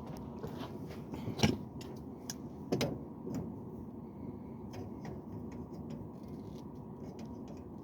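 Scattered light clicks and small metallic clinks of tools or fittings being handled, the sharpest about a second and a half in and again near three seconds, over a steady low background hum.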